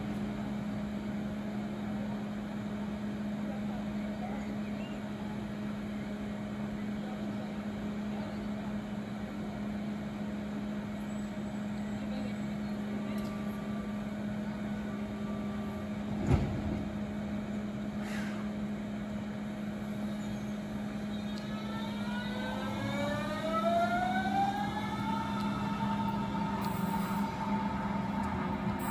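Steady low hum with one sharp knock about midway. Near the end, a Berlin S-Bahn electric train's traction motors start a rising whine of several pitches as it accelerates, then hold a steady tone.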